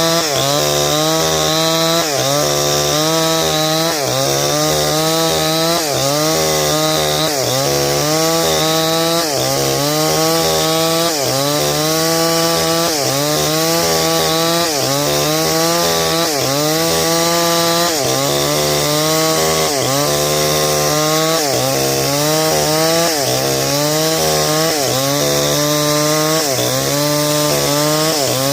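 Stihl 070 two-stroke chainsaw running at high revs while cutting wood. Its pitch sags and recovers about every one and a half seconds as the bar is pushed into the cut.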